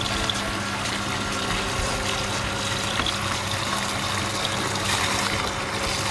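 A steady stream of water splashing from a hose into a drain over the steady hum of the flushing pump. This is the water being purged from a ground-source heat pump loop as brine is pumped in behind it.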